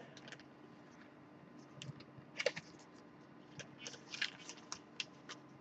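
Clear plastic sleeve crinkling in scattered short, faint crackles as a LaserDisc jacket is handled in it, starting about two seconds in.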